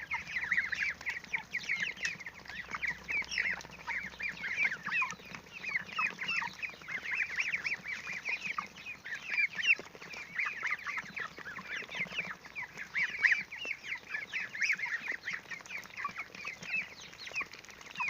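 A flock of three-week-old poultry (goslings, ducklings and broiler chicks) peeping constantly while they crowd in to feed, a dense stream of short high chirps.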